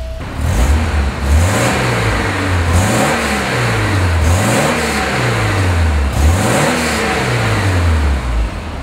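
1988 Porsche 944's 2.5-litre alloy four-cylinder engine, just started, being revved in place several times: the pitch rises and falls about every second and a half, then drops back to idle near the end.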